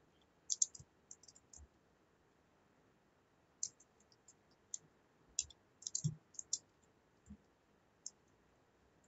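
Computer keyboard typing: faint, irregular runs of short keystroke clicks with short pauses between them.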